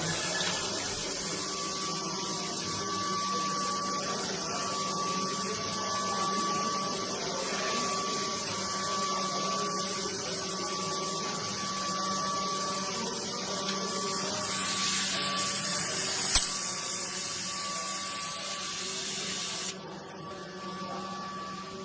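Robot-loaded HAAS CNC mill cell running: a steady air hiss over a steady high whine and a low hum, with one sharp click about three-quarters of the way through. The hiss cuts off suddenly near the end.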